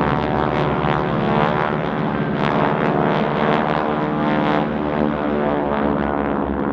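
A North American Harvard trainer in an aerobatic pass, its Pratt & Whitney R-1340 Wasp radial engine and propeller running steadily with a rasping, pulsing edge.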